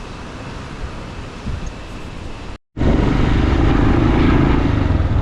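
Faint outdoor ambience, then after a sudden cut about halfway through, a loud steady rush of wind buffeting the microphone over a motorcycle engine running under way.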